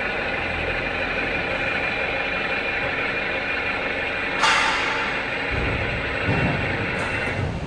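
X6332WA universal milling machine's automatic vertical feed lowering the table: a steady whine from the feed motor and gearbox. A short, loud burst of noise comes about four and a half seconds in, and the feed stops near the end.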